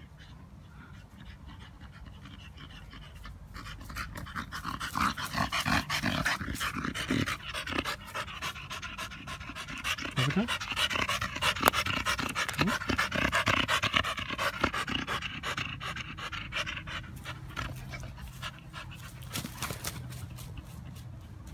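Staffordshire bull terrier panting fast and hard, out of breath from running after a ball. The panting grows loud a few seconds in, is loudest through the middle, and fades as the dog moves away.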